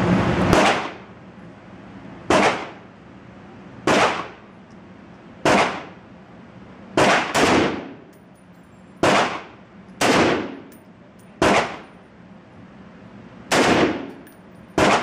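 Crusader Broadsword .308 semi-automatic rifle, an AR-10-type rifle with a Battle Comp muzzle device, firing about a dozen single shots at a steady pace of roughly one every second or so, with a couple of quicker pairs. Each shot is a sharp crack followed by ringing reverberation inside an indoor range.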